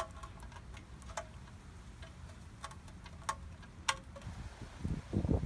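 A few sharp, light metallic clinks at irregular intervals, about five in all, as small steel bolts are handled while a new gasket is fitted to a transmission oil pan. A few low muffled bumps of handling follow near the end.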